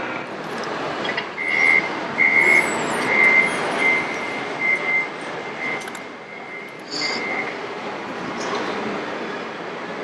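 Reversing warning beeper of an RC construction model's sound module: a single high steady-pitched beep repeated about eight times, a little more than once a second, stopping after about seven and a half seconds. Under it runs a steady din of model engine sound.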